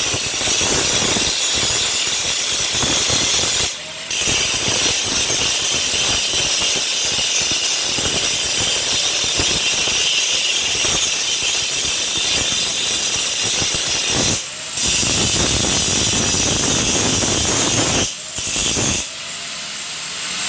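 Angle grinder grinding down and finishing the welds on a metal gate: a loud, steady hiss of the disc on metal. It breaks off briefly three times when the disc lifts off, and is quieter near the end.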